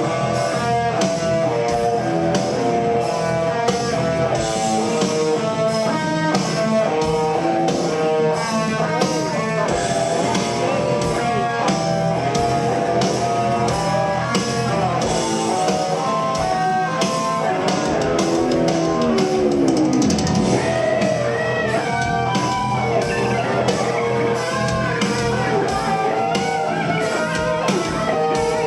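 Live rock band playing an instrumental passage: a guitar melody over drums, without vocals, with a swooping guitar slide about two-thirds of the way through.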